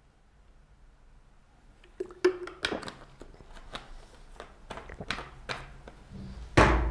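Near silence for about two seconds, then irregular clicks, rustles and knocks as a person moves about, with one louder thump near the end.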